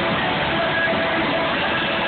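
Loud live concert music picked up by a phone's microphone: a dense, steady wash of sound with a few faint held notes, no clear beat or break.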